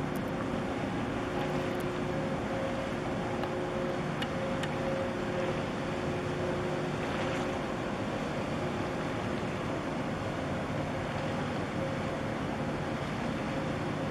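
Steady drone of a container ship under way, its engine and machinery humming in a few steady tones over a wash of wind and water noise.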